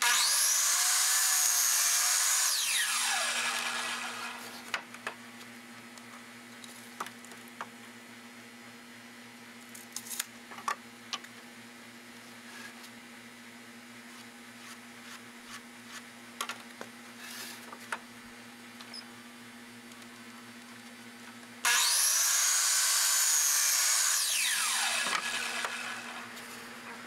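Miter saw squaring off the ends of cedar fence pickets, twice: each time the motor starts at once with a high whine, runs through the cut for about two to three seconds, then winds down with a long falling whine. Between the two cuts, scattered light knocks and clicks as the boards are slid into position.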